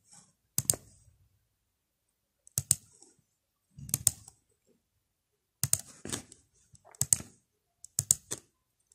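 Computer mouse buttons clicking: short clusters of two to four sharp clicks, one cluster every second or two.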